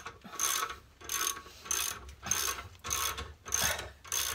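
Socket ratchet wrench winding the screw drive of a steel scissor box lift, clicking in short repeated strokes about one and a half times a second as the lift is raised.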